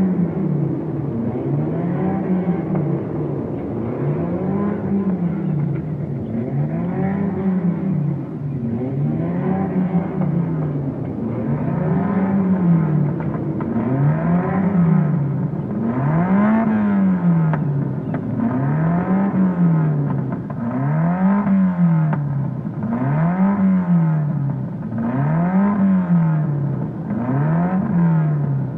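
Racing car engine revving up and falling back over and over in an even rhythm, about once every two seconds.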